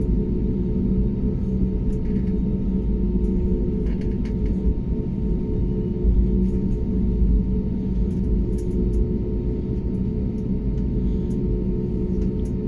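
Cabin rumble of an Airbus A320neo taxiing at low power, heard from inside over the wing: a steady low drone from its CFM LEAP-1A engines and rolling gear, with a faint steady hum above it, as the jet turns onto the runway before the take-off roll.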